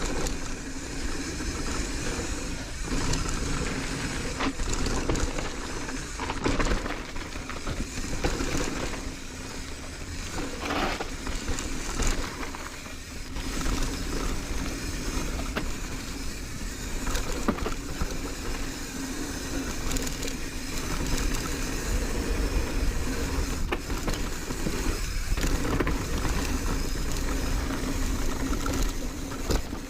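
Marin San Quentin hardtail mountain bike riding down a dirt bike-park trail: steady wind and tyre noise, with frequent knocks and rattles as the bike goes over rough ground.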